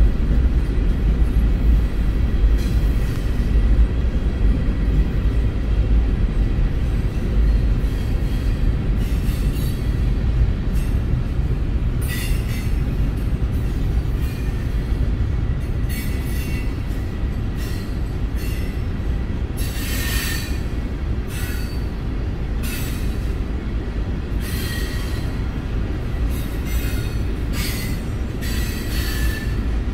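Freight train hopper cars rolling slowly past over a grade crossing, heard from inside a car: a steady deep rumble, joined from about a third of the way in by repeated short high-pitched wheel squeals.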